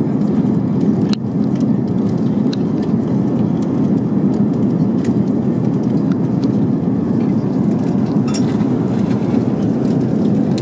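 Steady cabin noise of an Airbus A380 in flight: an even rush of airflow and engine noise, with a few faint clicks, one about a second in.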